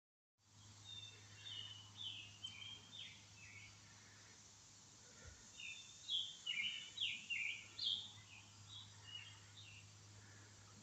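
A songbird singing: two phrases of quick, short, falling chirps, the second starting about halfway through and louder, over a faint steady low hum.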